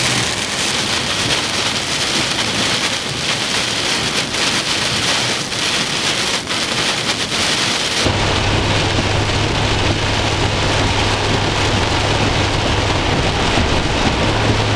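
Heavy rain pelting a moving car's windshield and roof, heard from inside the cabin as a loud, steady hiss over road noise. About eight seconds in the sound changes abruptly to a duller, lower rush with a steady low hum.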